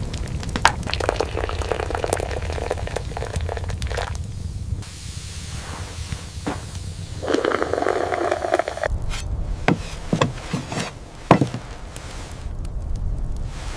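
Scraping and knocking with scattered sharp clicks over a steady low rumble.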